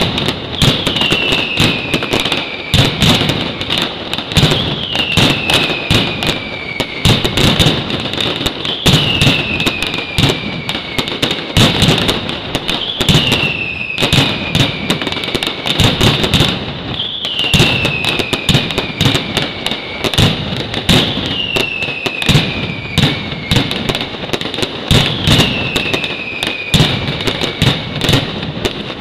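Mascletà firecrackers going off in a dense, continuous barrage of loud bangs. Over it, a high whistle falling in pitch repeats about every two seconds.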